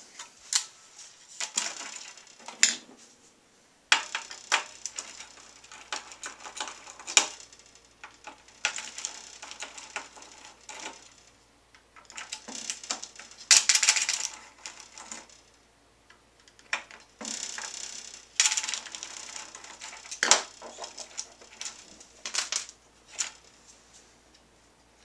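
Screws being worked out of an SGI Octane circuit board with a hand screwdriver: scratchy bursts of turning, a second or two each, between sharp clicks and clacks of the screwdriver, screws and boards being handled.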